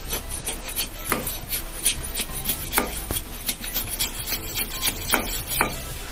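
Sharp knife shaving a split bamboo strip: a run of irregular scraping strokes along the wood, with several sharper, louder cuts among them, as the strip's width and thickness are pared down.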